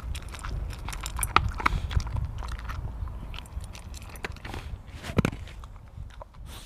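A dog chewing food with its mouth close to the microphone: irregular crunches and clicks of teeth, with a loud crunch about five seconds in.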